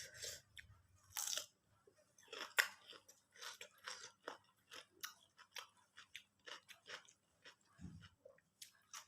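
Close-miked chewing with repeated crisp crunches, about two a second, as small fried fish (ikan seren) is eaten.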